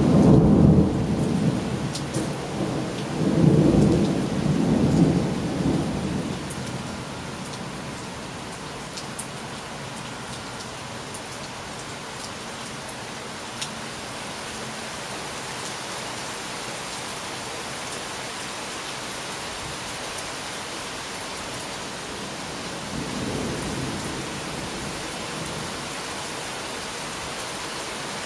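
Thunder rumbling over steady rain: a loud low roll at the start that dies away over about six seconds, then a softer rumble near the end, with the rain falling steadily throughout.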